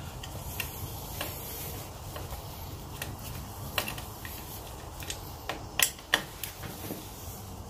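Hand tool clicking and tapping on the clutch cover bolts of a BMW K1200 engine as they are undone: sharp, irregular clicks, the loudest a little before and just after six seconds in.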